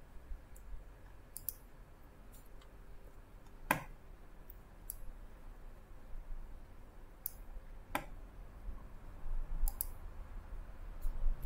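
Computer mouse clicking now and then, scattered short sharp clicks, with two louder clicks about four and eight seconds in.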